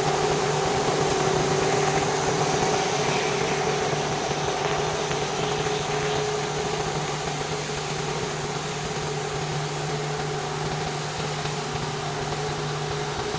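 Pressure washer running steadily: an even engine hum under a constant hiss of spraying water.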